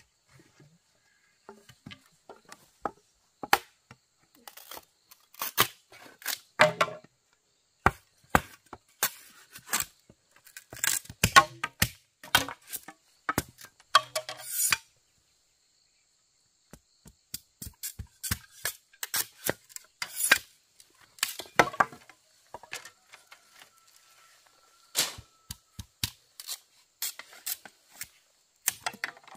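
Repeated sharp chopping blows with a blade, coming irregularly in quick runs, with a pause of about two seconds midway.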